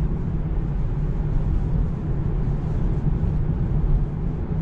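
Steady low rumble of tyre and wind noise inside the cabin of a Tesla Model 3 electric car on the move.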